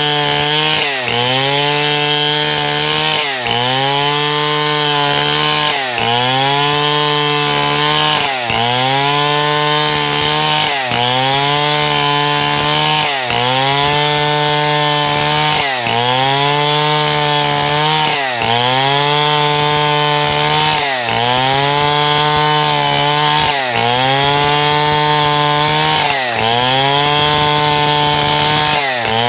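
Stihl MS070 two-stroke chainsaw cutting wood, running loud and steady. Its pitch dips and recovers about every two and a half seconds as the bar bites into the cut.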